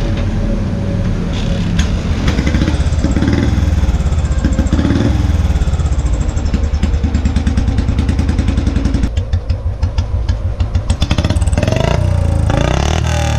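Royal Enfield Bullet 350's single-cylinder engine running through a long-barrel exhaust, blipped by hand on the throttle so the steady thump rises and falls. Its sound is very sweet.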